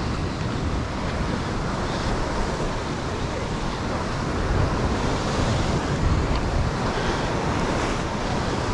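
Ocean surf breaking and washing against a rock ledge, with wind buffeting the microphone: a steady rush of noise that swells a little around the middle.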